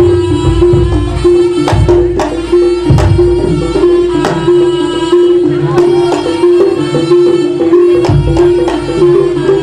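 East Javanese jaranan ensemble music played live: a reed-like melody instrument holds a steady, nasal note over hand-drum strokes and frequent sharp percussion hits. The deep drum beats drop out for about two seconds past the middle and then return.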